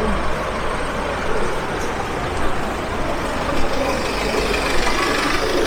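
City street traffic: a steady rumble of passing cars and heavier vehicles, with faint voices of passers-by toward the end.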